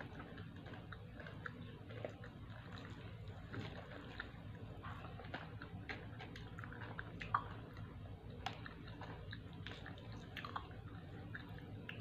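Faint eating sounds: crispy fried chicken being torn apart by hand and chewed, a scatter of small crackles and clicks over a steady low hum, with one sharper click about seven seconds in.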